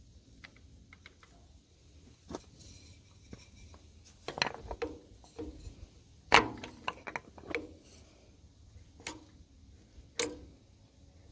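Hand strokes on the spring-loaded plunger of the fuel pump of an International Type M 3 hp engine, pushed with a wooden dowel to prime it: a series of sharp metallic clicks and knocks, bunched about four seconds in and again about six seconds in, with single knocks near the end. One stroke is the dowel slipping off the plunger.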